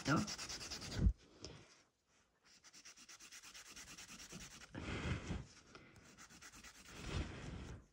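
A 180-grit hand nail file rasping in quick back-and-forth strokes along the side wall of a gel nail extension, shaping it straight. It pauses briefly about two seconds in, then the filing resumes.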